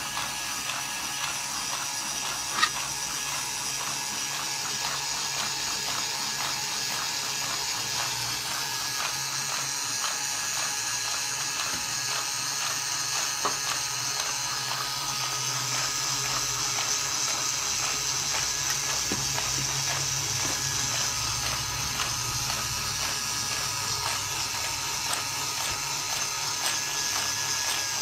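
Plastic scale model of a Toyota four-cylinder engine turning over, its fan spinning: a dense, rapid clicking and clattering of plastic gears and moving parts over a steady whir, with one sharp click about two and a half seconds in.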